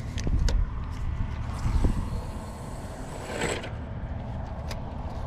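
Wind buffeting the microphone in a steady low rumble, with a few light handling clicks from a fishing rod and reel and a brief swish about three and a half seconds in.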